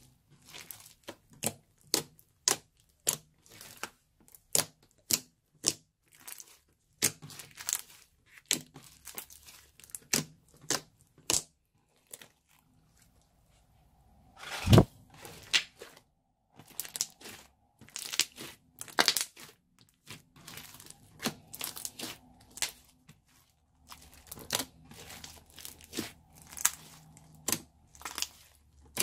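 Blue crunchy slime full of small foam beads being squeezed and pressed by hand, giving a run of sharp crackles and pops. The crackling pauses briefly a little before halfway, then resumes with one loud pop.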